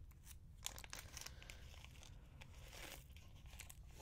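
Faint crinkling and rustling of a small clear plastic bead bag handled and opened by hand, with a few light scattered clicks.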